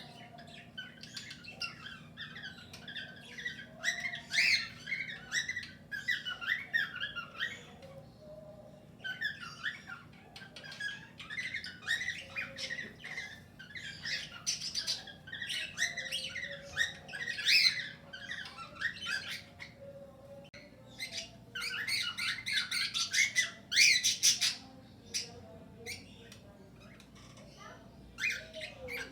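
A flock of cockatiels and budgerigars calling together in an aviary: overlapping chirps, squawks and short whistles in busy bouts, with brief lulls between them.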